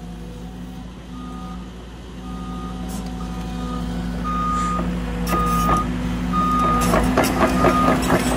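Cat 310 mini excavator travelling on its tracks, its travel alarm beeping about once a second over the running diesel engine. Clanking track and undercarriage noise grows louder from about five seconds in.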